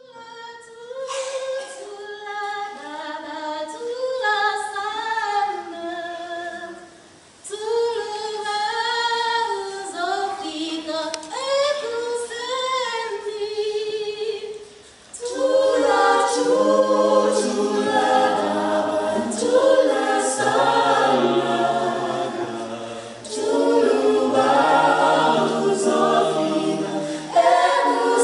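Mixed choir singing a cappella. Higher voices sing alone at first; about halfway in, low men's voices join and the sound grows fuller and louder.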